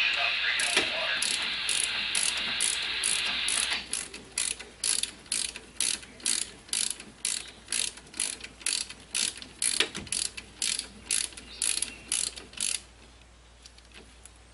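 A 14 mm socket ratchet clicking as it tightens the caliper bracket bolts on a front brake, in a run of quick even strokes about two to three a second that stops near the end. A steady rasping noise lies under the clicks for the first four seconds.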